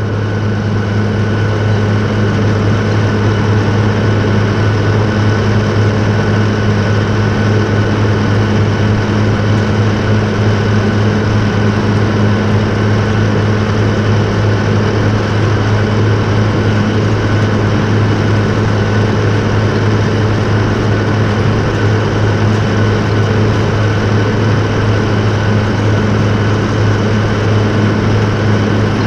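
John Deere 8850's V8 diesel engine running steadily under load as the tractor pulls a 50-foot tillage harrow, with a deep, even drone that holds one pitch throughout.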